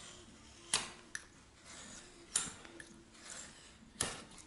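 Utility knife slicing through a car mud flap held against a wooden straightedge: three sharp cutting strokes about a second and a half apart, with a couple of lighter clicks between them.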